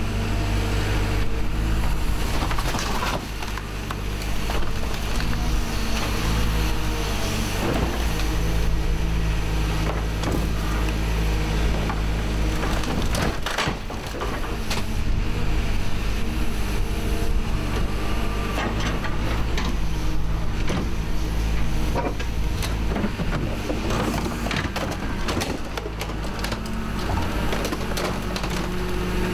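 Hyundai HX180 excavator's diesel engine and hydraulics running under load while its grab tears parts from a scrap car, with repeated crunching, cracking and snapping of metal and plastic. A sharper crack comes about thirteen seconds in.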